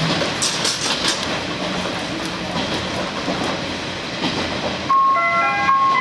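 Running noise inside a KiHa 47 diesel railcar, with a few clicks about half a second to a second in. About five seconds in, the JR Shikoku on-board announcement chime starts: a melody of clear electronic tones that signals an announcement is about to begin.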